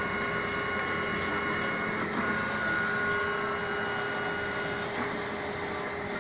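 Canon 2206 photocopier running a copy job: a steady mechanical hum with several steady whining tones that shift about two seconds in and again near five seconds.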